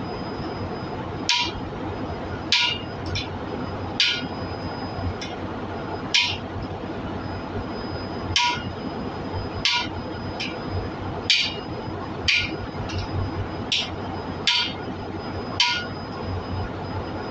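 Hammer blows on a steel driver, tapping a new exhaust valve seat into its pocket in a large diesel cylinder head: about a dozen sharp metal strikes, roughly one a second and a few lighter taps between them, each with a short metallic ring, over a steady background hum.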